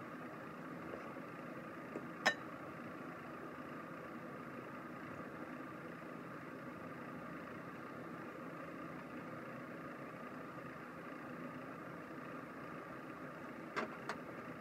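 Faint steady room hum with one sharp tap about two seconds in and two lighter clicks near the end, from a rice paddle and hands working on a wooden cutting board while rolling kimbap.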